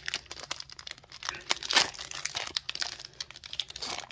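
Foil booster-pack wrapper being torn open and crinkled by hand: irregular crackling, with one louder rip just before the middle.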